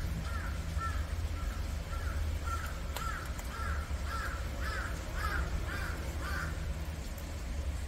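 Repeated short chirping calls, about two a second, growing louder and stopping about six and a half seconds in, over a steady low hum.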